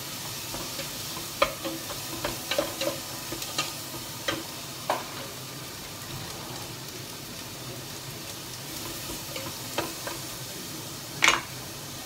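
Garlic, onion and ginger sizzling steadily as they sauté in a little oil in a stainless steel pot. For the first few seconds a wooden spoon stirs them, knocking sharply against the pot. There is one loud knock near the end.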